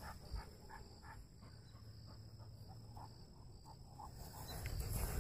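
A dog panting quickly and faintly, about three or four short breaths a second, over a low rumble.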